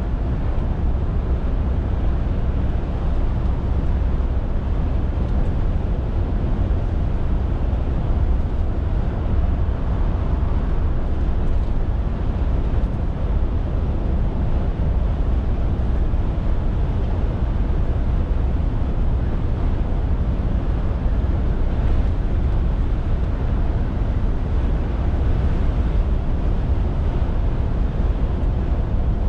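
Scania R450 lorry on the move: its 13-litre straight-six diesel engine and tyre and road noise make a steady low drone with no changes.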